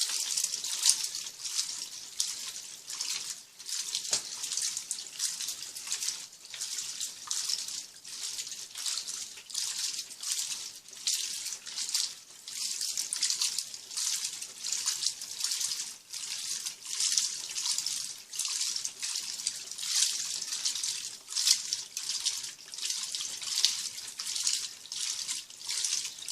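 Turbo Economia 15 kg top-loading washing machine agitating a load of jeans: soapy water sloshing and swishing in the tub, swelling and easing about once or twice a second with each stroke.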